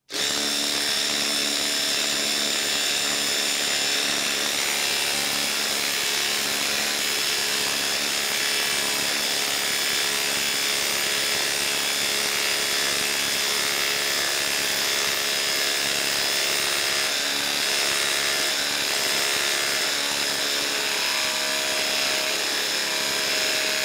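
Ryobi HP quarter-inch hex impact driver hammering steadily under heavy load, driving a 10-inch by half-inch lag screw into the end grain of a log through a socket adapter.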